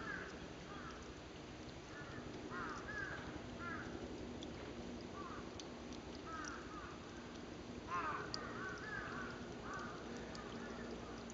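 Crows cawing in short calls repeated in clusters, loudest about eight seconds in, over a low steady hum.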